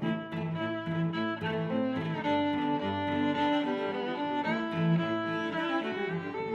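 Instrumental music on bowed strings, cello and violins, playing sustained notes of a melody.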